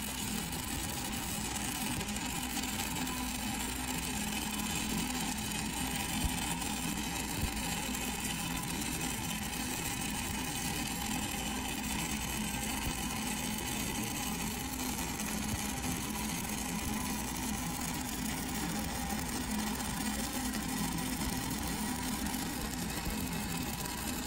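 Stick-welding arc of a 5/32-inch 6010 electrode burning steadily as the rod is dragged along the joint, a constant hissing arc noise over a steady low hum.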